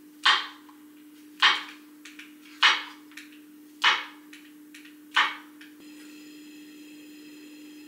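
Five sharp knocks, evenly spaced about one every second and a quarter, over a steady low hum. After the last knock the hum carries several thin, high, steady tones.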